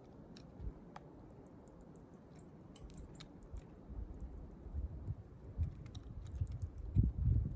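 Small wild birds moving close to the microphone: irregular light taps and soft thumps, busiest near the end, with a few faint high chirps.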